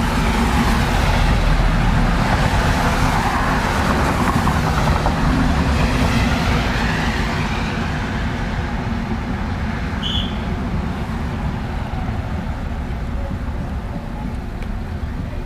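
Cars passing on a wet road: tyres hissing on the wet asphalt over a low engine hum. It is loudest in the first few seconds as a car goes by, then settles into a steadier, lower wash of traffic.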